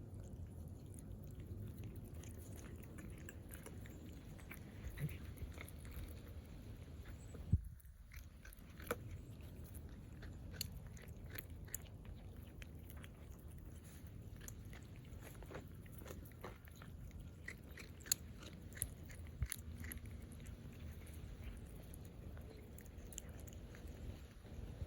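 A person eating close to the microphone: faint chewing and biting, with many small scattered mouth clicks and one sharper click about seven and a half seconds in.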